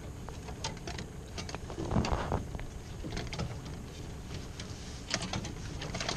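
A landing net and a netted northern pike being handled against the side of an aluminum boat: irregular light clicks and knocks, with a short splash about two seconds in.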